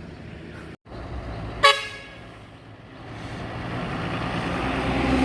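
One short vehicle horn toot, then the engine noise of an approaching vehicle growing steadily louder.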